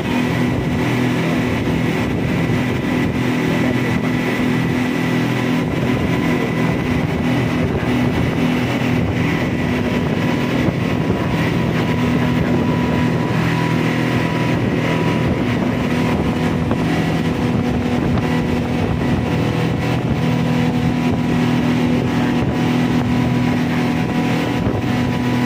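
Speedboat engine running steadily at cruising speed, heard from on board, with wind and water rushing past the hull.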